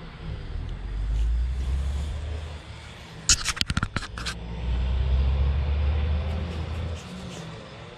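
Fingers scraping through loose soil in a freshly dug hole to pull out a coin: a quick run of gritty scratches about three seconds in, over a low rumble that swells and fades twice.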